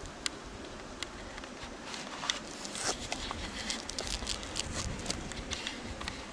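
Irregular rustling and crackling, thickest in the middle, from a person moving on foot over grass and twigs and handling the camera.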